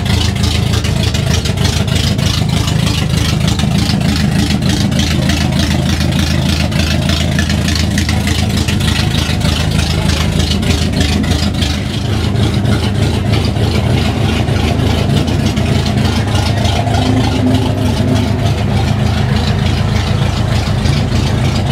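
A loud engine idling steadily with a fast, even pulsing, unbroken throughout.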